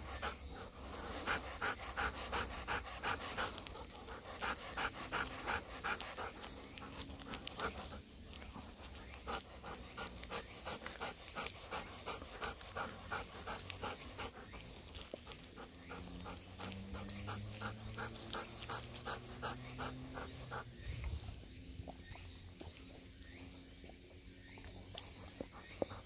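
Golden retriever panting rapidly and evenly, about three breaths a second, with a short pause partway through; the panting stops about twenty seconds in.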